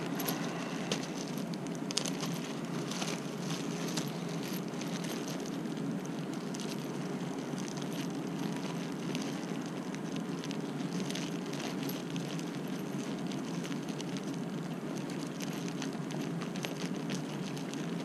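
Clear plastic zip-top bag crinkling as a hand sorts through the loose screws inside it: a run of small irregular crackles and clicks, one sharper about two seconds in, over a steady low background noise.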